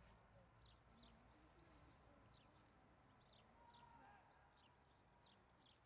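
Near silence with a bird chirping faintly: short, high, downward chirps repeated every half second or so.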